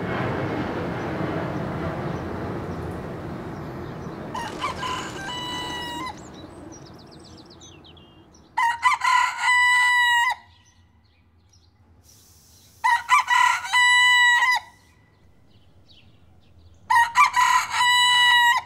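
A white broiler-type rooster crowing: one fainter crow about four seconds in, then three loud crows a few seconds apart. Over the first several seconds a passing airplane's noise fades away.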